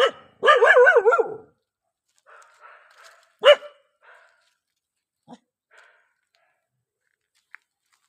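A dog barking: a sharp bark, then a quick string of barks run together whose pitch wavers up and down for about a second, and one more loud, sharp bark about three and a half seconds in.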